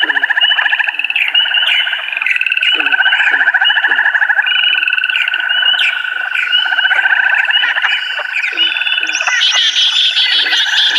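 A flock of small cage birds, white-eyes and prinias, chattering and trilling all at once in an aviary: a dense, unbroken mass of rapid chirps and trills.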